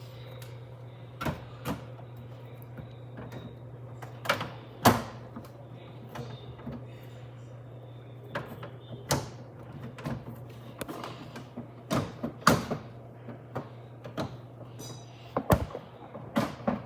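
Homix DF-AF290C air conditioner running with a steady low hum, under irregular sharp clicks and knocks.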